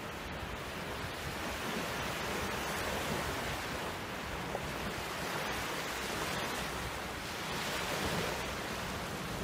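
Small waves washing up onto a sandy beach: a steady, even rush of surf.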